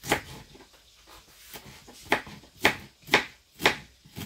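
Knife chopping on a wooden cutting board: one chop at the start, then four evenly spaced chops about half a second apart.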